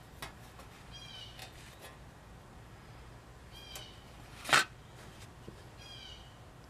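A bird's short, falling, mewing call, given three times. About halfway through comes a single loud, sharp rasp.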